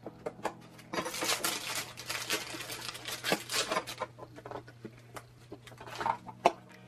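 Crinkling and tearing of small mystery-box packaging being pulled open by hand, a dense crackle lasting about three seconds, followed near the end by a few sharp clicks and taps.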